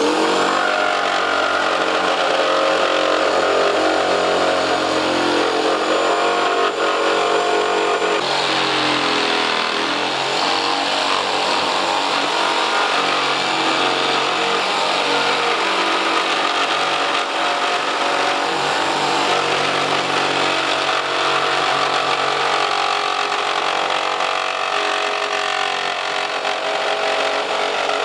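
Corded electric jigsaw running continuously as it cuts through a board, its motor note shifting in pitch a few times as the blade works through the cut.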